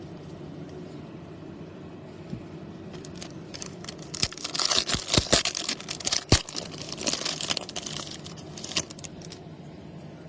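Foil wrapper of a baseball card pack being torn and crinkled open, with a few sharp snaps, over a steady low room hum.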